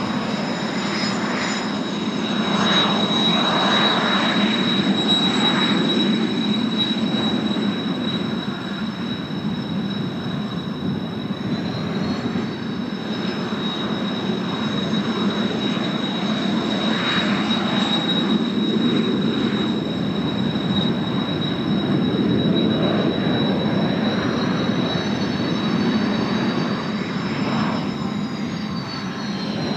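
Kawasaki T-4 jet trainers flying over, their turbofan engines giving a steady rushing noise with a high whine on top. The whine's pitch steps up about twelve seconds in and slides again near the end as the jets move.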